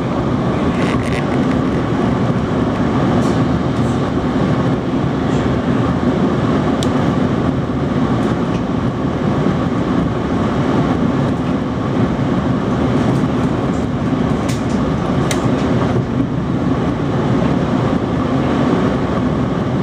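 Steady rumble and hiss of a Frecciarossa high-speed train running on the rails, heard inside the passenger carriage as it pulls out of the station. A few short sharp clicks come now and then.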